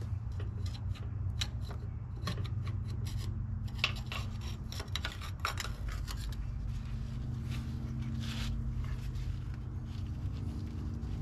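Hand scraping with a metal scraper blade along the steel edge of a tiller's chain-drive gearbox housing. It comes in quick short strokes, densest in the first half and sparser later, over a steady low hum.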